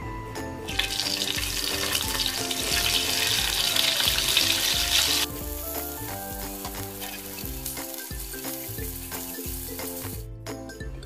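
Spice-coated boiled eggs sizzling loudly as they go into hot oil in a frying pan. The sizzle starts about a second in, drops suddenly to a softer sizzle about halfway and cuts off near the end.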